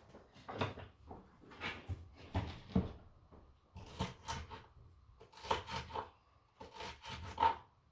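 A utensil stirring and scraping chunky chicken salad around a plastic mixing bowl, in a string of irregular short strokes.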